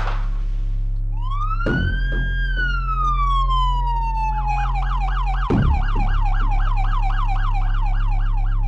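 Emergency-vehicle siren: one long wail that rises and then slowly falls, switching to a fast yelp of about four cycles a second. Underneath are a steady low drone and two dull thumps.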